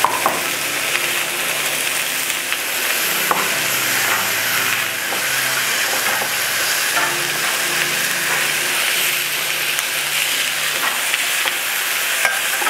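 Food sizzling in hot oil in a pot on a gas stove, stirred with a wooden spatula. The sizzle is a steady hiss, with a few light clicks of the spatula against the pot.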